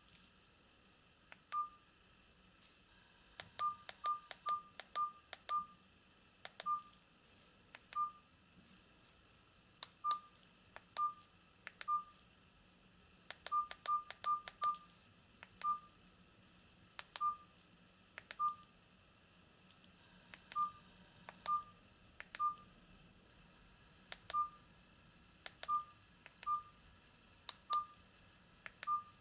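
Philips E106 keypad key tones: short beeps, all at the same pitch, each with a faint click of the key, about two dozen of them at uneven spacing, sometimes three or four in quick succession, as the phone's menus are stepped through.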